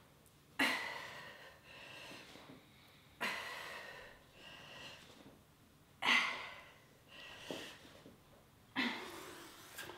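A woman's forceful breathing in time with exercise reps: four sharp puffs of breath out, about every two and a half seconds, each trailing off, with softer breaths in between them.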